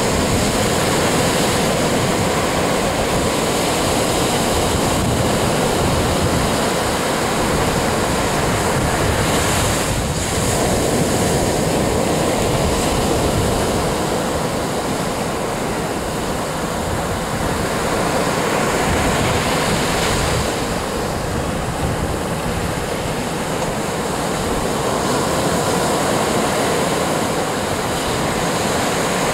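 Steady rush of surf washing on the shore, with wind buffeting the microphone as an uneven low rumble underneath.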